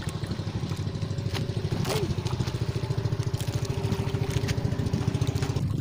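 Small boat engine idling with a fast, even chugging pulse.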